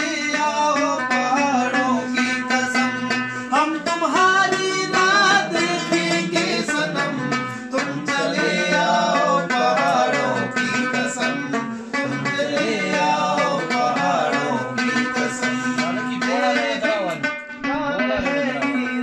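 A man singing a slow Urdu song with wavering, held notes, accompanied by a plucked long-necked lute and a steady low drone.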